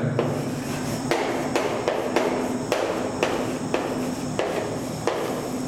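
Chalk knocking and scraping against a chalkboard as a word is written by hand: a quick series of taps, roughly two a second, over a steady hum.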